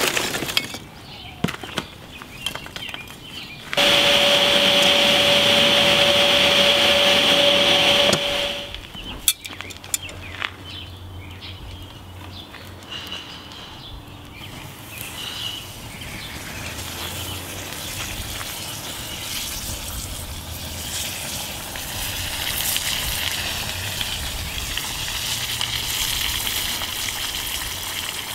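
Red-hot steel axe head quenched in a tin of quenchant: a sizzling, bubbling hiss that builds over several seconds. Earlier, a loud steady rushing noise with one held tone runs for about four seconds, followed by a few clicks.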